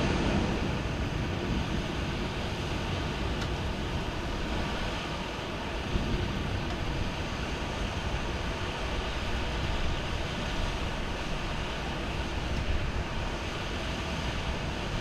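Steady downpour of rain with a low rumble underneath, the tail of a thunder roll dying away in the first second or so.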